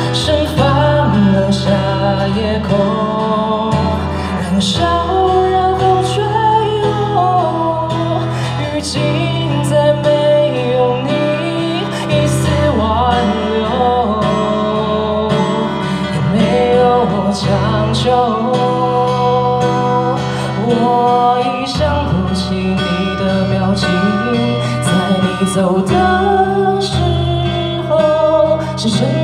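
Live acoustic song: a man singing into a microphone over a steel-string acoustic guitar, heard through a PA.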